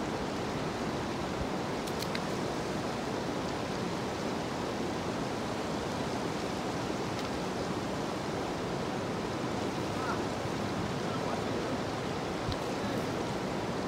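A steady, even rushing noise with a faint click or two.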